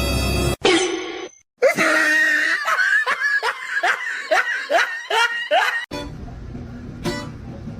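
A person laughing hard in a long run of short rising bursts, about three a second, for some four seconds, ending abruptly.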